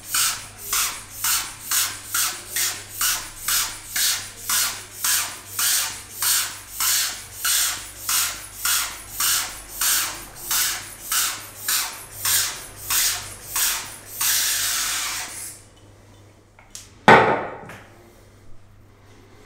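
Aftershave pump sprayer squirting in quick short bursts, about two dozen at roughly two a second, then one longer spray of about a second and a half. A single sharp slap follows a little later, aftershave patted onto the face, which is called a good hard slap.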